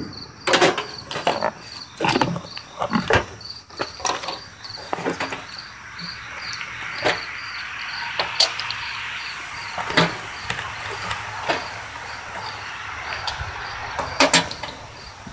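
Insects chirping in a steady high pulse about three times a second, with scattered sharp clicks and knocks. A broad rush of noise swells up in the middle and fades again.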